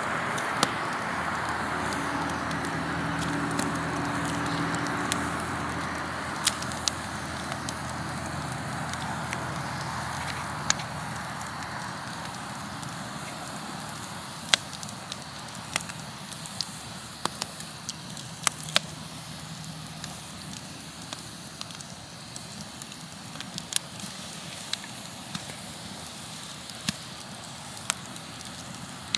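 A wood fire crackling: sharp pops and snaps scattered throughout over a steady hiss of burning, the hiss easing off after the first several seconds.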